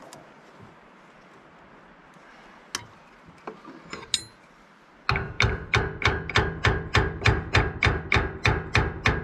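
A few light clinks of hand tools against metal. About five seconds in, background music cuts in abruptly: a fast, even percussive beat of about three strikes a second with a steady pitched note.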